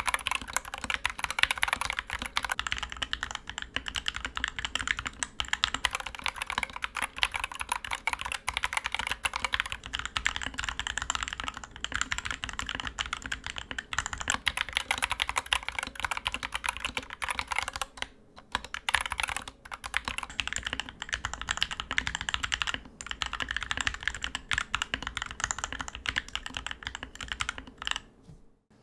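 Fast, continuous typing on a Dierya DK61E 60% mechanical keyboard with Gateron optical switches lubed with Krytox 205g0 and tape-modded: a dense stream of key clacks, with a short pause a little past the middle and another near the end.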